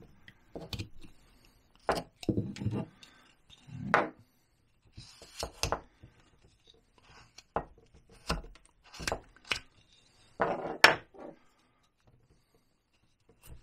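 Hand carving gouge slicing short texture cuts into a basswood gnome beard: an irregular series of brief scraping cuts with pauses between them, the loudest a little past ten seconds in.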